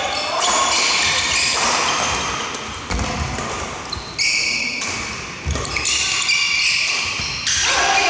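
Badminton doubles rally: rackets smacking the shuttlecock, with court shoes squeaking and stamping on the wooden floor. Heavier footfalls land about three and five and a half seconds in, all echoing in a large hall.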